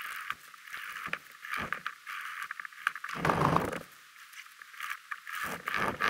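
Hand-drill friction fire-lighting: a wooden spindle spun back and forth between gloved palms, scraping in its seat on a log and rubbing against the gloves in quick short strokes. A louder scuffing burst comes about three seconds in and again near the end.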